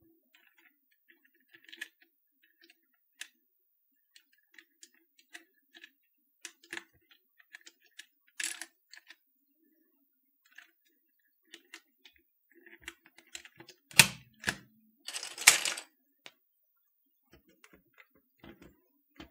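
Small plastic clicks and taps as keycaps are handled and snapped onto the key switches of a Canon TypeStar 4 keyboard, with two louder plastic clatters about two-thirds of the way through.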